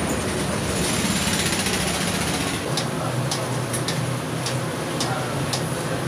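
Steady low hum under a constant background din, with a few light clicks near the middle.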